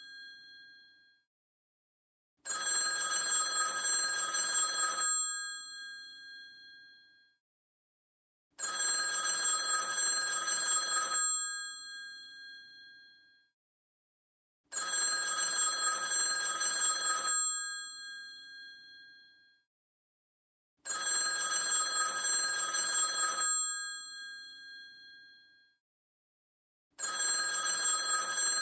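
Vintage telephone's mechanical bell ringing in a regular cadence: rings about two and a half seconds long, one every six seconds, each one dying away after it stops. Four full rings, with a fifth starting near the end.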